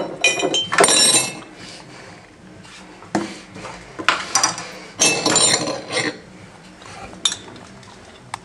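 Kitchen clatter of glass jars and a metal spoon clinking, scraping and being set down on a countertop, in several short bursts with pauses between.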